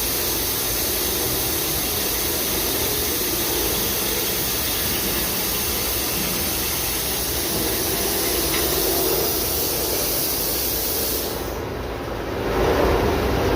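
Daito DNF-1050 CNC beam drill line running, a steady hissing machine noise over a low hum. Near the end the hiss cuts out suddenly, and a louder, lower machine sound starts.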